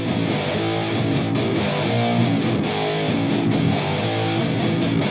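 Background music led by strummed guitar with a steady beat.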